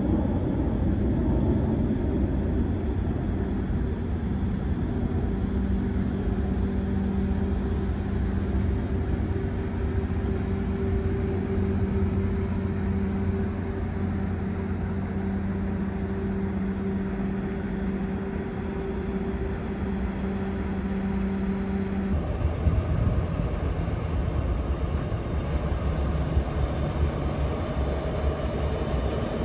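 Steady low mechanical hum with a constant drone over a rumbling background, which cuts abruptly about 22 seconds in to a rougher, gustier low rumble without the drone.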